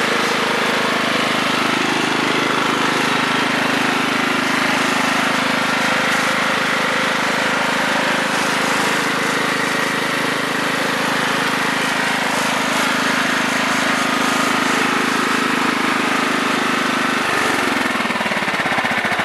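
Single-cylinder 15 hp Kohler Command OHV engine on a 1996 Craftsman riding mower, running steadily when warm, which the owner says runs really well. Its steady note shifts and wavers near the end.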